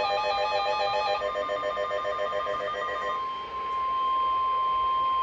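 A rapidly pulsing electronic trill of several tones, bell-like, thins out and fades over the first three seconds. Then a single steady high-pitched tone starts: the NOAA Weather Radio warning alarm tone, which signals that a warning is about to be broadcast.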